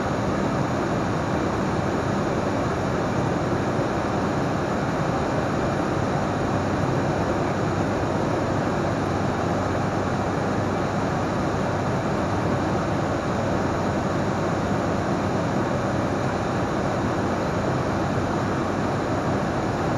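Steady drone of an ATR 42-500's turboprop engines and propellers with airflow noise, heard inside the cockpit; an even rush with faint steady tones and no change in pitch or level.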